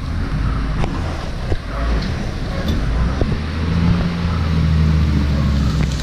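Diesel engine of a Tata tipper truck running, a steady low drone that gets louder about halfway through.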